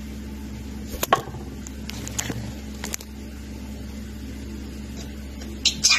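Steady low hum with a few faint clicks, and a budgerigar starting to chirp near the end.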